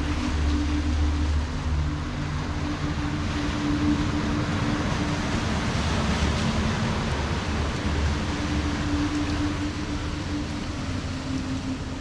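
Ocean surf washing over a rocky shore, swelling to a peak about halfway through, with a steady low hum underneath.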